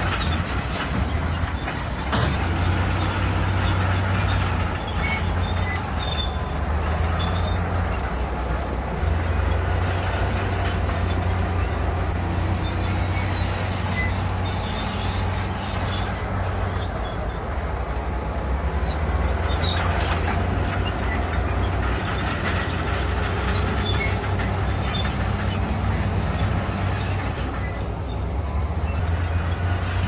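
Bulldozer's diesel engine running steadily under load, a deep drone with dense metallic clatter from its steel tracks.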